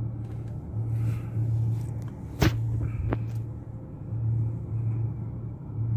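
Low rumble of a long cargo train rolling past a level crossing, heard from inside a stopped vehicle, swelling and easing unevenly. A sharp click about two and a half seconds in, and a fainter one soon after.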